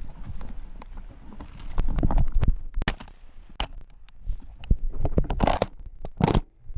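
Footsteps crunching and scuffing through dry grass and brush, with irregular knocks and scrapes from the shotgun and its mounted camera being carried. A couple of short rushing swishes near the end.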